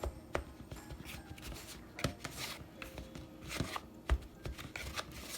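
A utensil cutting cold butter into flour in a mixing bowl, making irregular scraping strokes and clicks against the bowl as the butter is worked down into small pieces.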